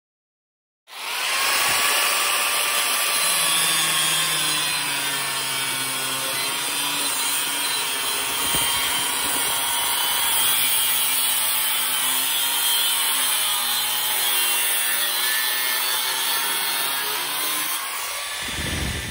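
Milwaukee angle grinder with an abrasive cutoff wheel cutting through steel angle iron: a loud, steady whine with the rasp of the wheel in the metal. It starts suddenly about a second in.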